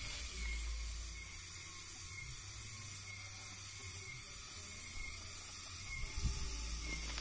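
Steady high-pitched hiss of insects in a tropical coffee garden, with a faint short chirp about once a second. A low rumble from the phone being handled comes in near the start and again near the end.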